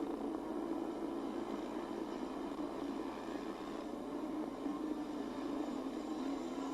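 Motorcycle engine running hard at high revs under load up a steep climb, its pitch wavering slightly.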